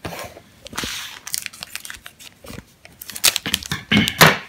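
Foil wrapper of a Carddass booster pack crinkling as it is handled, with a run of louder sharp crackles near the end as the pack is torn open.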